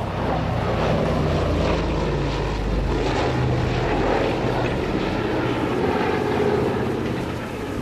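Lockheed C-121C Super Constellation flying low past, its four Wright R-3350 turbo-compound radial piston engines and propellers giving a steady, loud drone as it passes and banks away.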